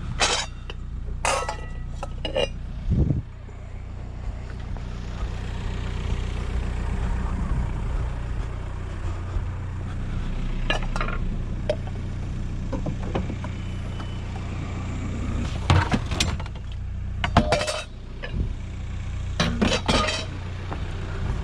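Metal pots and scrap clinking and clattering as they are handled, in several short bursts, over a car engine idling steadily.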